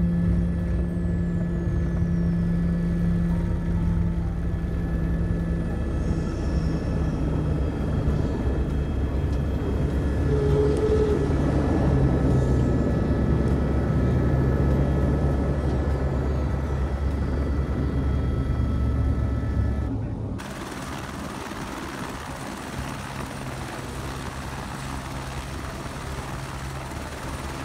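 Helicopter cabin noise in flight: rotor and turbine running steadily with a loud low hum. About two-thirds of the way through it cuts to a quieter, steady helicopter engine and rotor running on the landing pad.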